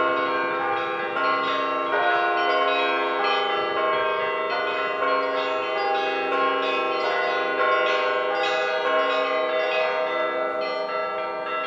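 Church bells ringing: several bells struck in quick, irregular succession, their tones overlapping and ringing on over one another.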